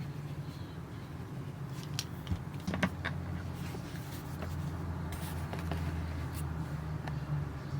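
A few light clicks and taps from handling small objects, most of them about two to three seconds in, over a steady low hum.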